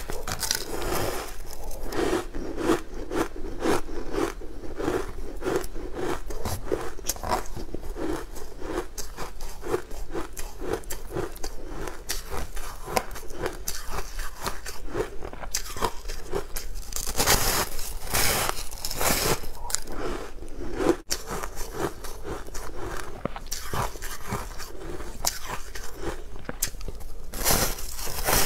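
Close-miked biting and chewing of a frozen ice bar: a dense run of sharp crunches, with scraping as the bar is pressed into a tub of frozen crumbs. The crunching comes in louder clusters past the middle and again near the end.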